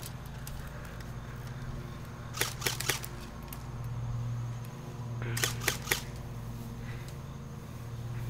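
Airsoft guns firing in two quick groups of about three sharp shots each, one group about two and a half seconds in and another about five and a half seconds in, over a steady low hum.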